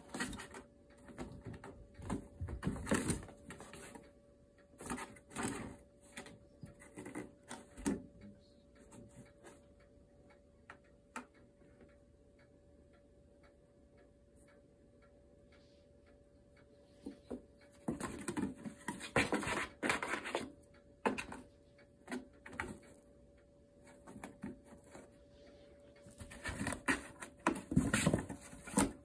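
Kittens scrabbling in and against a cardboard box: bursts of scratching, rustling and light knocks on the cardboard, with a quieter spell in the middle.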